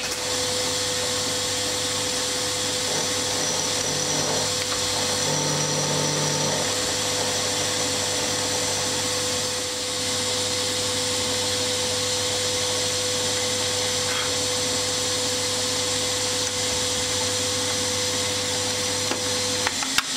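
Milling machine spindle running an end mill that cuts a V-shaped recess into a metal block, a steady machine hum with one held tone. It cuts off just before the end.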